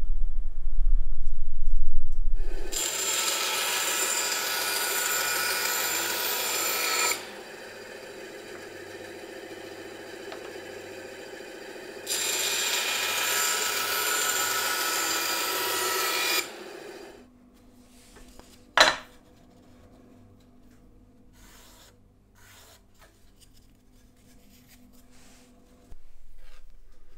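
A tool working wood with a rasping, rubbing sound: two loud stretches of about four seconds each, with a quieter stretch of the same sound between them. After it stops, there is a single sharp click.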